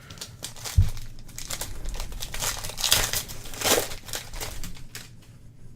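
Plastic wrapping on a trading-card box or pack being crinkled and torn open, with a dull thump about a second in.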